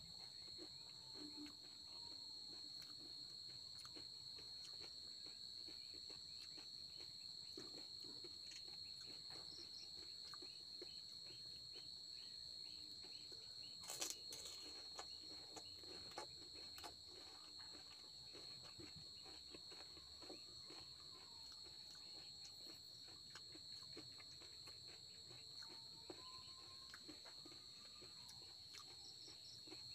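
Faint eating sounds of panipuri: soft crunches and wet mouth clicks as the crisp puris are bitten, with one sharp crunch about halfway through. Under them runs a steady high-pitched drone of insects.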